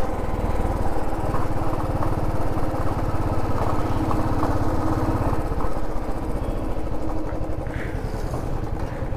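Motorcycle engine running steadily at low speed, a fast even putter, heard from on the bike itself as it rolls slowly along.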